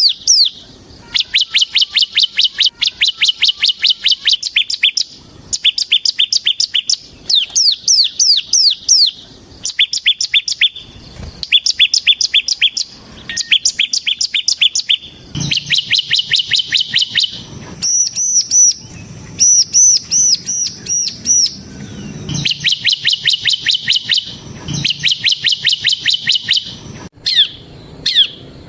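Bar-winged prinia (ciblek semi) singing in its fast 'ngebren' style: loud bursts of quick repeated, falling chip notes, about ten a second, each run lasting one to two seconds with short pauses between. Around the middle the song switches for a few seconds to higher, ringing looped notes, then goes back to the fast runs.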